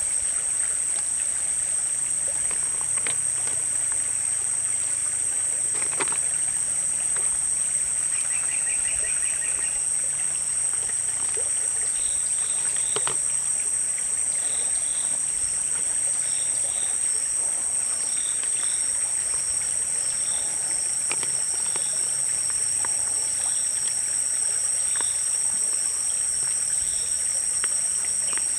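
Steady high-pitched outdoor drone over a stream-like hiss, with a few sharp clicks as snail shells are set onto a wicker basket of crabs. Small chirps repeat about once a second in the second half.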